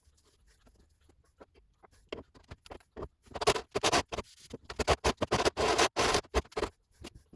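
Irregular scraping and clicking of hand work, sparse at first and then a dense run of short scrapes and knocks in the middle, with no motor running.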